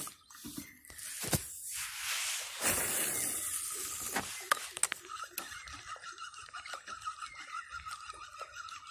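Cast of a fishing rod and reel: a swelling whoosh as the line pays out, followed by a few sharp clicks at the reel. After that a steady high-pitched fluttering drone sets in.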